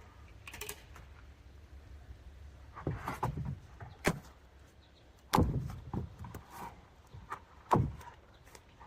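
Wooden fence boards knocking and thudding as they are handled and fixed in place: a sharp knock about four seconds in and two heavier thuds, the loudest, about five and a half and eight seconds in, spaced irregularly.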